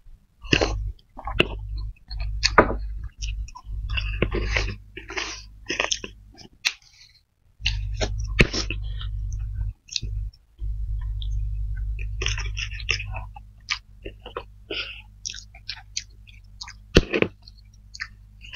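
Close-up eating sounds of spicy fried flat rice noodles (kway teow) with fried egg: wet chewing and slurping in short irregular bursts, with a few sharp clicks of forks against the platter.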